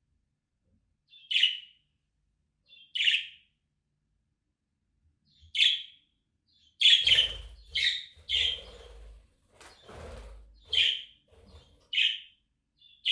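Young budgerigar giving short, sharp contact calls, one every second or two, with a busier run of calls in the middle over a low rumble.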